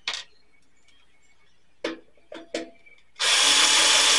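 A few short clicks and knocks of handling, then about three seconds in an electric drill-driver starts running steadily, backing a screw out of a VCR's metal bottom cover.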